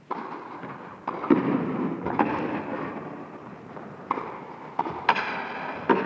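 Tennis ball struck back and forth by rackets in a rally in an indoor hall: several sharp hits roughly a second apart, each echoing, over a steady murmur from the crowd.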